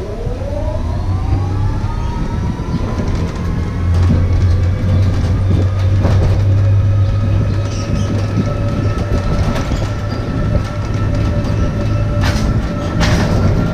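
Electric tram's drive motor whining up in pitch as it gathers speed, then holding a steady whine at cruising speed over a low road rumble. Near the end come two brief knocks.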